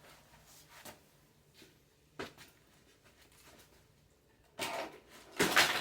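Handling noises from unpacking the prop's parts: a few light clicks and knocks, then two short, louder rustles near the end.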